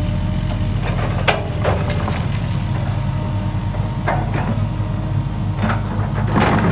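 Heavy diesel construction machinery running steadily, with a few sharp metallic knocks spread through it.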